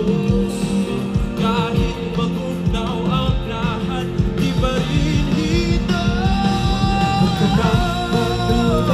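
Live pop-rock band playing: electric guitars, an acoustic guitar and keyboard under a singing voice, with longer held sung notes in the second half.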